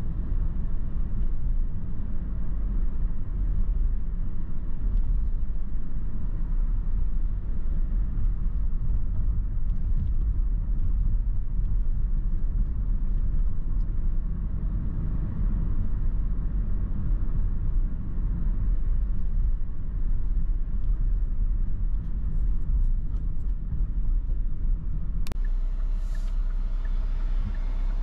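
Steady low rumble of a car driving, its engine and tyres on the road heard from inside the cabin through a dash-mounted GoPro. One sharp click near the end.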